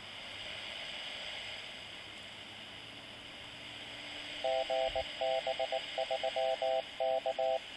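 Steady hiss from a Yaesu handheld radio's speaker. About four and a half seconds in, the GB3KD amateur repeater's Morse-code ident starts: a mid-pitched tone keyed in short and long beeps, grouped into letters.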